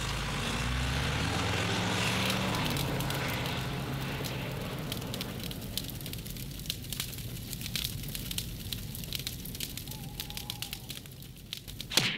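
A truck engine running as it pulls away, fading over the first few seconds, then a fire crackling and popping, with a loud snap near the end.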